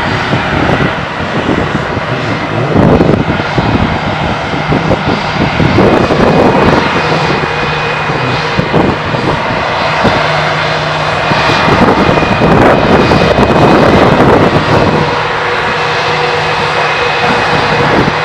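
Airbus A320-200 jet engines (IAE V2500 turbofans) running at low thrust as the airliner taxis: a steady rumble with a high whine.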